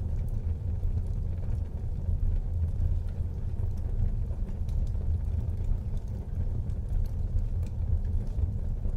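Wood fire burning in a fireplace: a steady low rumble of the flames with faint, scattered crackles.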